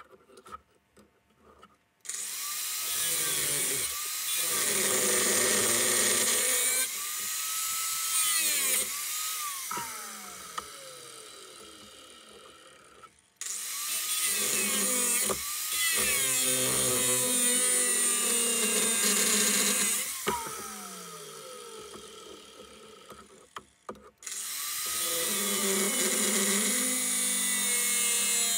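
Angle grinder with a cutting disc starting up and cutting through brass welding-torch necks, in three runs; after each of the first two the motor winds down with a falling pitch. A few light clicks of handling come before the first start.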